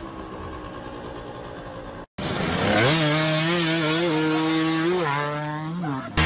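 A dirt bike engine revving hard and held at a high, fairly steady pitch with small wobbles, coming in about two seconds in as mud is flung off the track. Before it, only faint outdoor noise.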